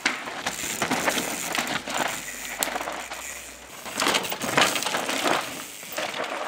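Mountain bike tyres crunching and scraping over loose dirt and stones, in an irregular string of crunches that is loudest a little past the middle.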